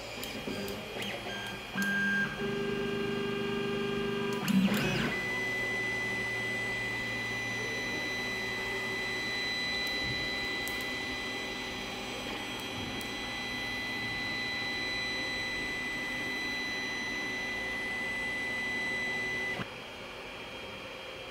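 Creality Ender-3 3D printer running on its stock V1.1.3 mainboard, its stepper motors whining as the axes move. In the first few seconds several tones shift in pitch and there is one knock; then a steady high whine holds for about fifteen seconds. Near the end the whine drops away to a much quieter hum and fan hiss, as the silent V1.1.5 board drives the motors.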